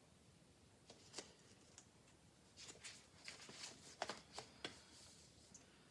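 Pages of a paper communication book being turned and handled: faint rustling with a cluster of light ticks and flaps in the second half.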